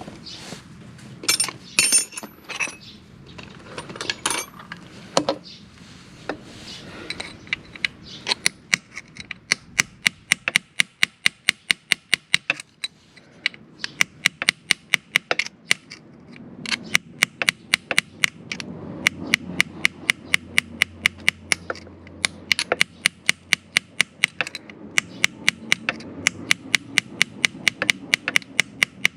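Hammer tapping steadily on metal, about three or four sharp strikes a second in long runs with short pauses, after a few scattered clanks of tools in the first seconds. The tapping works at a rounded-out oil drain bolt on a motorcycle's oil pan.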